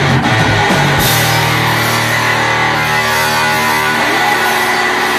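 Live punk rock band with electric guitars and drum kit: drums and guitars hit together until about a second in, then the drums stop and a loud guitar chord is held ringing.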